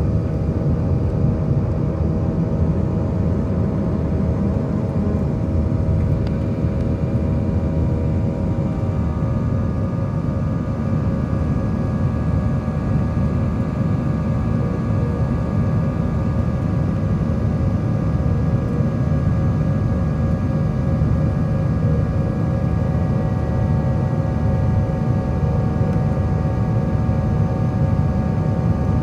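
Airbus A320 cabin noise during the climb after takeoff: a loud, steady rumble of the jet engines and airflow with a humming whine over it. About nine seconds in, the engine tones shift, with the lower hum giving way to higher-pitched tones.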